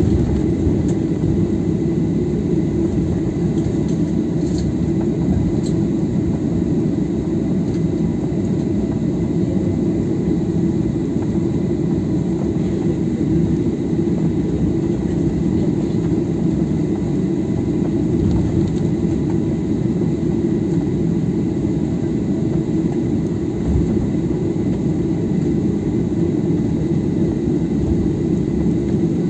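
Steady low rumble of a Ryanair Boeing 737's jet engines at taxi power, heard from inside the cabin, with a faint thin steady whine above it.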